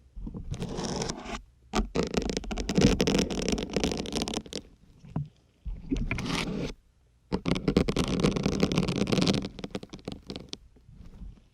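Syringe needles being pushed into a dense grey sponge, a crackling scrape with each push, in four bursts of one to three seconds.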